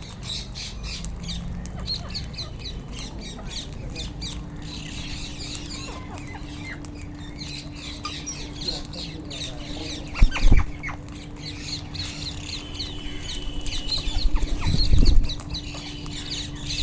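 A flock of Indian ringneck parrots (rose-ringed parakeets) calling, with many short, shrill chirps and squawks overlapping all through. Two loud, low bursts stand out, about ten and fifteen seconds in, over a faint steady low hum.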